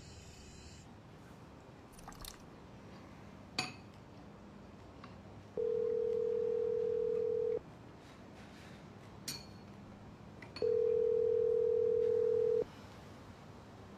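Telephone ringback tone, the call ringing at the other end: a steady mid-pitched tone lasting about two seconds, heard twice with about three seconds between. A few faint clinks come before and between the rings.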